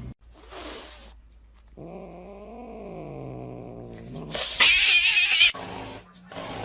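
A cat gives a long, low, drawn-out yowl that rises and then falls in pitch, followed by a loud, harsh noisy burst about a second long.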